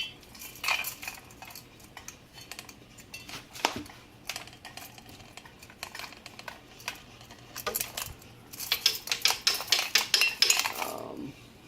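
Small metal parts of a ceiling fan's light fitting and switch housing being handled, with irregular clinks and rattles that become a rapid run of clicking near the end.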